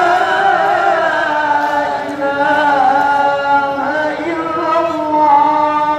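Islamic vocal chant from the mosque: one voice holding long, ornamented notes that slide to a new pitch every second or two.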